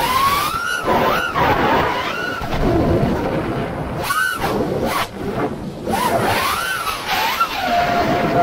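5-inch FPV freestyle quadcopter's Hypetrain 2306 2450kv brushless motors whining, the pitch rising and falling again and again with each throttle punch and flip, heard from the drone itself over a rumble of wind on the microphone.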